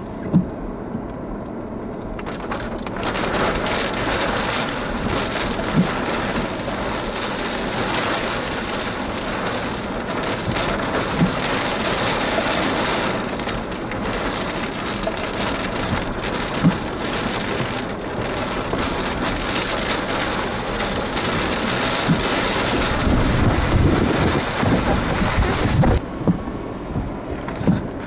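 Steady hiss of rain and wind during a thunderstorm, with a few sharp ticks of drops striking, and a deeper rumble swelling near the end.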